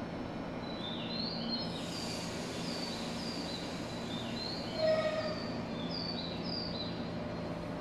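Small birds chirping repeatedly over the steady low hum of a stationary electric train. A brief, louder tone sounds about five seconds in.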